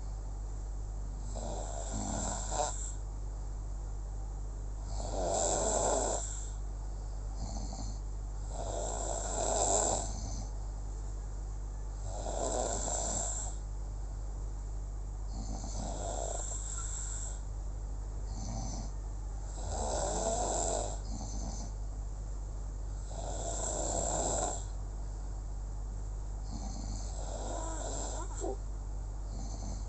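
Sleeper snoring in a slow, regular rhythm, one noisy snore about every three and a half to four seconds, over a steady low hum.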